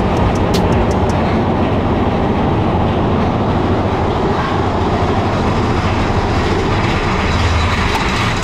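Big Thunder Mountain Railroad roller coaster train running on its track, a steady loud rumble with a rapid clicking that stops about a second in.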